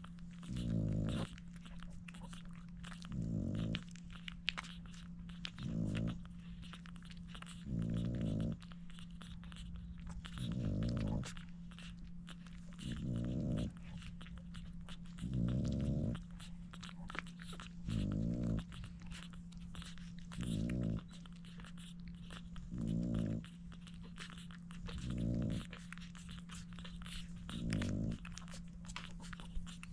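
Newborn French bulldog puppies suckling, with small wet clicks and smacks, while the mother French bulldog breathes heavily in loud, low breaths about every two and a half seconds. A steady low hum lies under it all.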